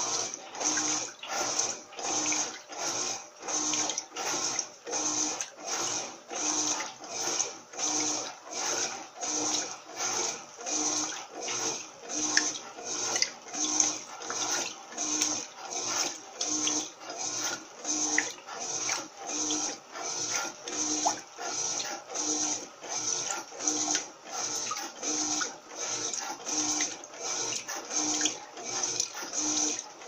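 Electrolux top-loading washing machine agitating a load of laundry in water. It sloshes rhythmically, with a short motor hum on each back-and-forth stroke, about three strokes every two seconds.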